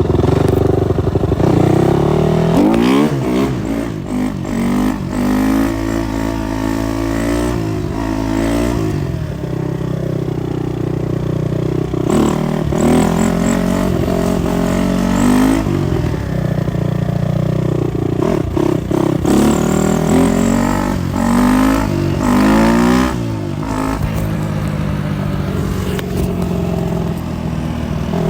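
Supermoto motorcycle engine revving up and falling back over and over as it accelerates and slows, its pitch rising and dropping many times, with a few sharp clacks in between.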